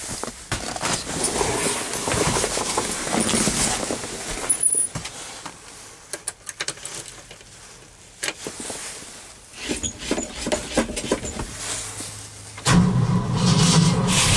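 Keys jangling and clicking rattles, then about 13 seconds in a sudden loud, steady drone as the starter begins cranking a cold engine in freezing weather.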